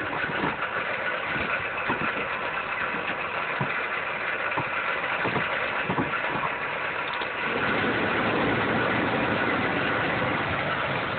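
Dodge Caliber engine running with a grinding, knocking noise that the owner puts down to a failing alternator pulley; scattered knocks come through in the first half, and a louder, denser rumble sets in about two-thirds of the way through.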